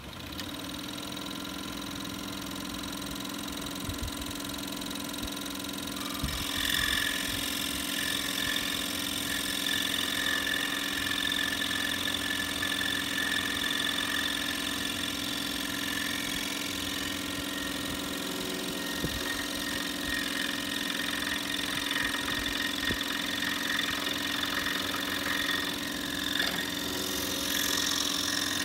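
Benchtop scroll saw running steadily, its fine blade cutting through a wood board; about six seconds in the sound grows louder and hissier as the blade works into the wood.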